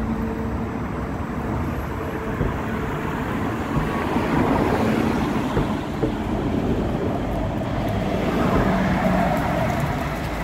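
Light-rail trams running along the platform: a continuous rumble of steel wheels on rails, with a faint steady hum in the first two seconds and the noise swelling in the middle and again later as cars pass close by.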